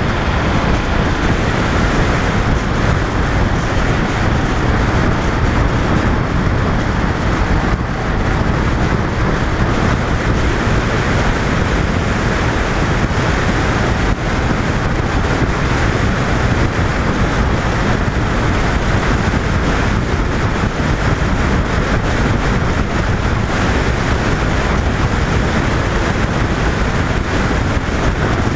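Steady wind rush on the microphone of a camera mounted on a 2005 Honda VFR800 riding at road speed, with the motorcycle's engine and tyre noise beneath it.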